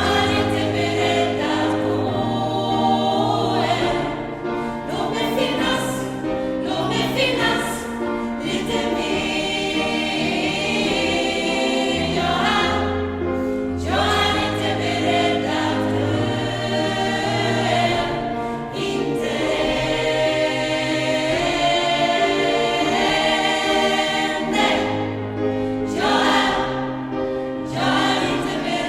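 Gospel choir singing with instrumental accompaniment, held low bass notes under the voices.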